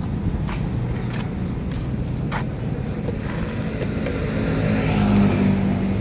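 A motor vehicle engine running, growing louder and a little higher in pitch about four to five seconds in, with a few light clicks over it.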